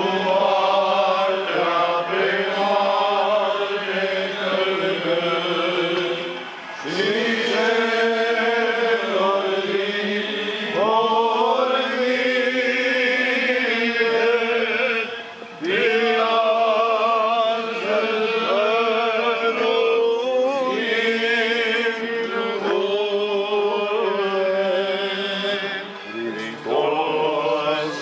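Orthodox church chanting: a sung melodic line over steadier held tones, in phrases broken by short pauses about every nine or ten seconds.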